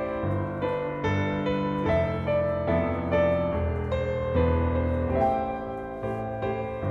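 Slow, gentle piano music, with notes changing about every half second over held bass notes.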